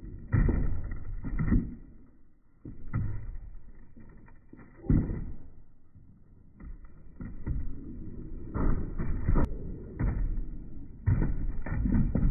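Skateboard on a wooden quarter pipe with metal coping: wheels rolling on the plywood between a series of sharp knocks and clacks as the tail locks onto the coping in a blunt stall and the wheels drop back onto the ramp, several times over.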